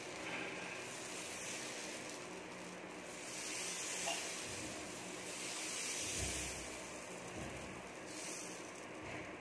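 Dosa batter sizzling on a hot tawa as a ladle spreads it in circles: a soft, steady hiss that swells a few times.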